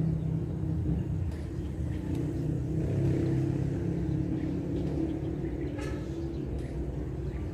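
An engine running steadily in the background, a low rumble with a wavering hum.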